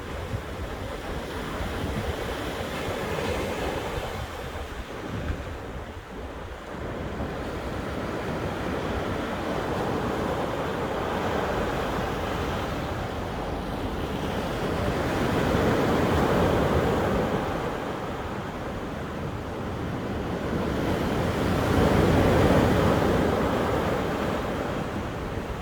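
Sea waves breaking on a beach, a steady rush of surf that swells and eases, loudest twice in the second half as bigger waves come in.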